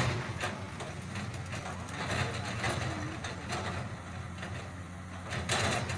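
Komatsu PC200 hydraulic excavator's diesel engine running steadily under load, with irregular knocks and scrapes as the bucket digs into the soil.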